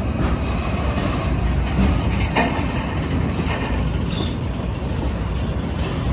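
CSX military freight train rolling past: a steady rumble of railcars, with scattered clicks and clanks of the wheels on the rails.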